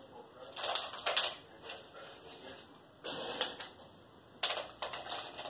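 Handling noise: a terracotta pot and its saucer knocking, clicking and scraping against each other in the hands, in three short bursts.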